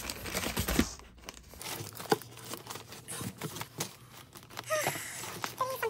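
Plastic bag and paper wrapping crinkling and rustling in a quick, irregular run of crackles as a silk pillowcase is pulled out of its packaging.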